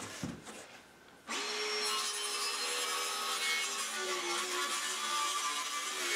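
Circular saw starting about a second in and cutting through a sheet of plywood, running steadily with a constant motor whine.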